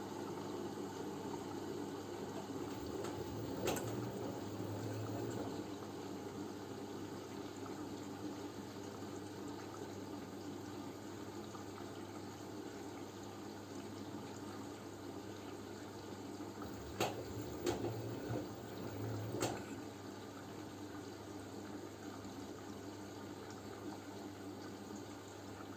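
LG F10B9LD front-loading washing machine in its wash stage: water running and sloshing in the drum, with a faint hum. A few sharp clicks, one about four seconds in and three between about seventeen and nineteen seconds in.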